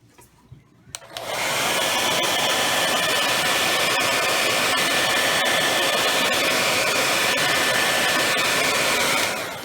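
Hair dryer clicked on about a second in, blowing steadily with a faint whine, then switched off and winding down near the end.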